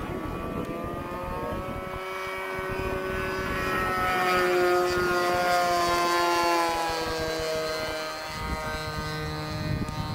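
Engine of a radio-controlled Extra aerobatic model plane flying past: a steady pitched drone that grows louder and rises a little in pitch, then drops in pitch and fades as the plane passes, about two-thirds of the way through.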